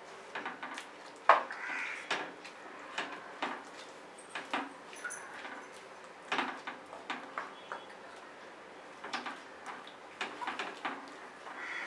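Wooden spatula stirring chicken curry in an iron kadai, scraping and knocking against the pan in irregular clacks, with one sharp knock about a second in.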